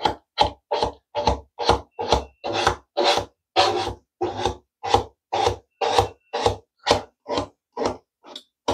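Small plastic squeegee rubbing in short strokes over wet static-cling window film on glass, about two strokes a second, smoothing the film down along the edges and into the corners.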